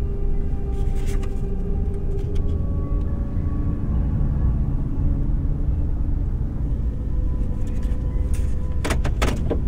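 Honda car running, heard from inside the cabin as a steady low rumble of engine and road noise. A few sharp knocks or clicks come near the end.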